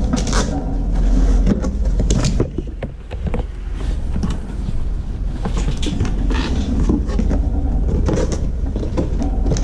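Cardboard box being opened by hand: flaps pulled apart and folded back, with repeated scrapes, rustles and light knocks over a steady low hum.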